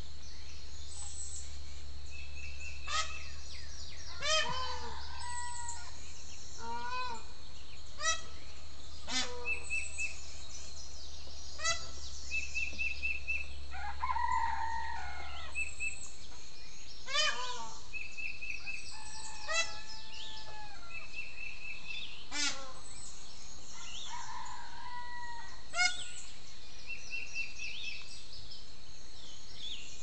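A peacock giving loud calls again and again, mixed with roosters crowing and wild songbirds chirping and trilling, over a steady high-pitched drone.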